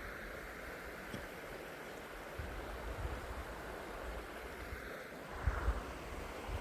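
Creek water flowing steadily with an even rushing sound, broken by a few soft low thumps, the loudest cluster near the end.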